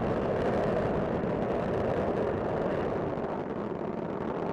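Space Shuttle Discovery's solid rocket boosters and main engines during ascent: a steady, noisy rumble.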